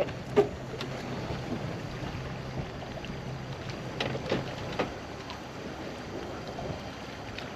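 Wind and choppy water lapping against a pontoon boat, with a low steady hum that fades out about halfway through and a few light knocks.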